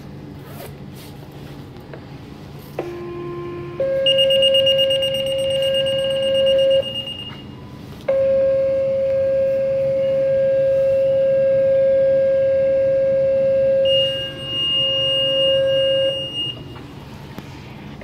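Fire-department paging tones sounding over radio and pagers. About three seconds in a short low tone steps up to a longer, higher one, with the pagers' shrill alert over it. After a brief gap a long steady tone of about eight seconds follows, and the shrill pager alert sounds again near its end.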